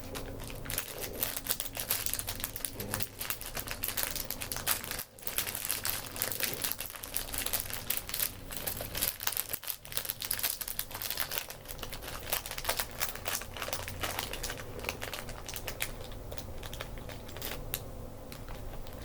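Plastic bags crinkling and small Lego pieces clicking and rattling as they are handled, an irregular crackle with short pauses about five and ten seconds in.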